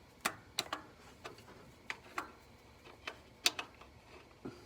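Irregular sharp metallic clicks and taps from a crescent wrench working the fuel inlet fitting on a carburetor.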